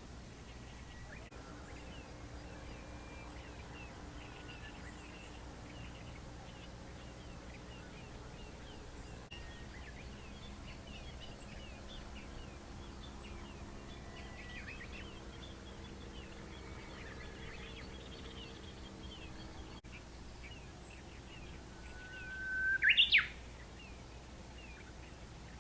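Birdsong: many faint, short chirps throughout, over a faint low hum. Near the end comes one loud bird call, a held whistle that leaps up sharply in pitch.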